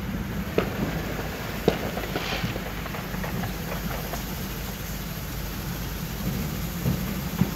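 Low, steady rumble of a car heard from inside the cabin while it sits in traffic, with a few scattered sharp pops.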